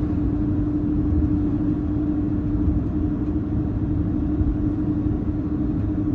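Steady low rumble inside the cabin of an Airbus A330-200 from its General Electric CF6-80E1 turbofan engines, with a steady hum running through it.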